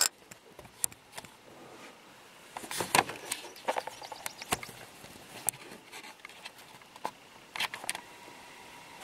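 Scattered light clicks and rustling over a low steady hiss, with a busier patch about three seconds in and a short one near the end.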